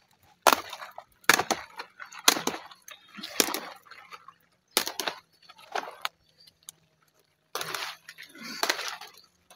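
Kale leaves being plucked by hand, snapping off their stalks: a series of irregular sharp snaps with leaf rustling between them.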